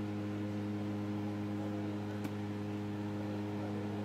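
A steady low hum with even overtones, unchanging throughout, and a single sharp click about two seconds in.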